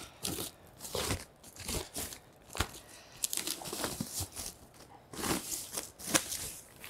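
Thin plastic bag crinkling and rustling in irregular bursts as it is handled and pulled off a boxed projector, with a few sharper crackles.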